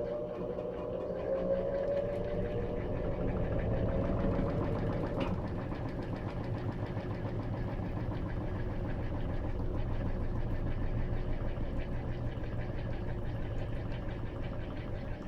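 Electrolux LT13B top-load washing machine running: a whine slowly rising in pitch for the first five seconds or so ends with a click, then a steady low rumble and vibration.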